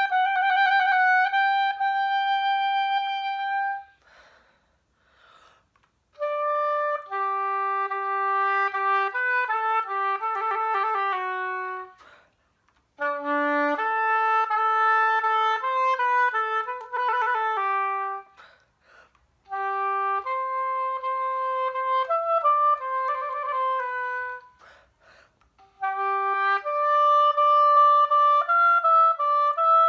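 Unaccompanied oboe playing five phrases of held notes and quicker runs, each a few seconds long, separated by short pauses.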